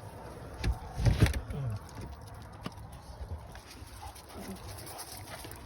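A dog gives a short call that falls in pitch about a second in, among a few sharp knocks.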